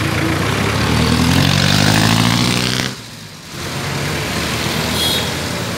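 Street traffic dominated by a nearby motor vehicle engine whose pitch rises as it speeds up. It cuts off abruptly about three seconds in, and steadier traffic noise follows.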